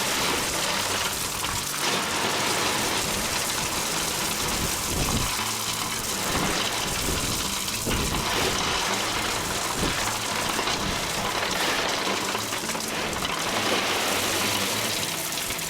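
Blue slate rock pouring and sliding out of a dump truck's bed in a steady rushing stream of stone, with the truck's engine running faintly underneath.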